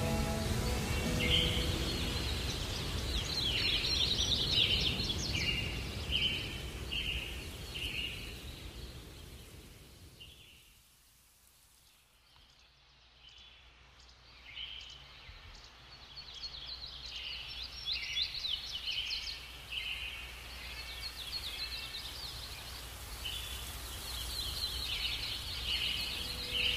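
Oil sizzling and bubbling in a frying pan, with birds chirping repeatedly in the background. The sound fades away about ten seconds in and comes back a few seconds later.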